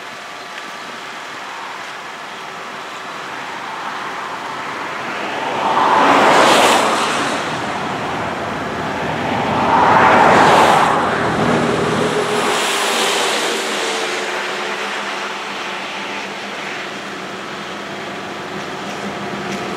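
Vehicles passing at speed on a road, tyre and engine noise swelling and fading. Two loud passes come about six and ten seconds in, a softer one around thirteen seconds, over a steady background rush.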